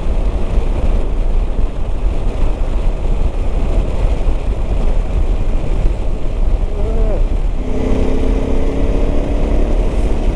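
Motorcycle riding at speed: steady wind rush on the microphone over the engine. Later on, a steady engine note stands out for a couple of seconds.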